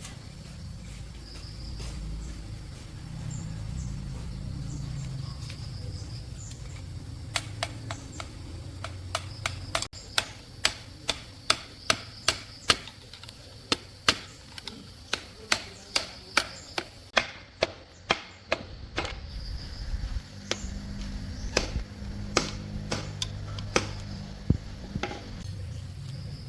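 A hammer striking repeatedly at about two blows a second. The blows start about seven seconds in and stop shortly before the end.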